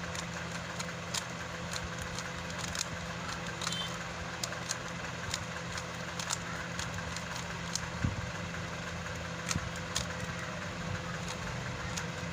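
Rubik's cube layers being turned in quick succession, giving a run of short, irregular plastic clicks over a steady low hum.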